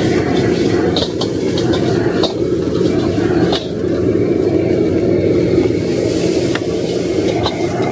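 A gas wok burner running at high flame with a steady rush, while a metal spatula stir-fries vegetables and rice noodles in the wok, giving scattered sharp clanks and scrapes against the metal.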